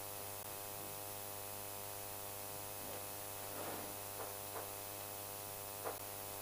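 Steady electrical mains hum with a buzzing ladder of overtones in the sound system, during a pause in the talk. A few faint soft noises come through around the middle and near the end.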